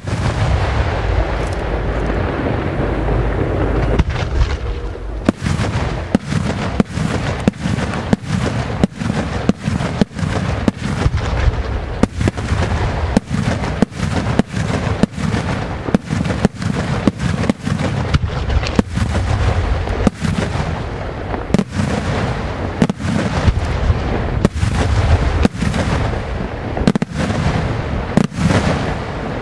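Aerial firework shells bursting in quick succession. A dense rumble of overlapping booms fills the first few seconds, then a steady run of sharp bangs about two a second.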